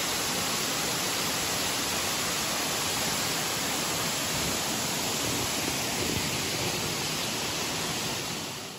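Crabtree Falls and the stream cascading over rocks below it: a steady rush of falling water.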